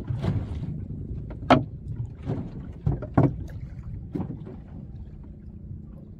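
Wind on the microphone as a steady low rumble, with choppy waves splashing and slapping against a small boat's hull every second or so; the loudest slap comes about a second and a half in.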